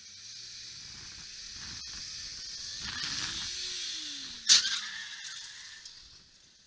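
Faint traffic noise picked up by a dashcam: a steady hiss of wind and tyres that builds slowly, with a low vehicle tone rising and then falling in pitch around the middle. About four and a half seconds in there is a single sharp knock, the loudest sound, before the noise fades out.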